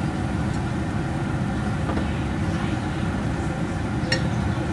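A steady low rumble of stovetop cooking noise while chopsticks stir food in a small pot, with one light clink of the chopsticks against the pot about four seconds in.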